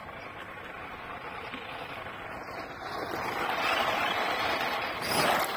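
Rear-wheel-drive Tamiya CC-01 RC rally car driving and sliding on loose gravel, its tyres scrabbling through the stones, growing louder as it approaches and with a sharp louder rush of gravel a little after five seconds in.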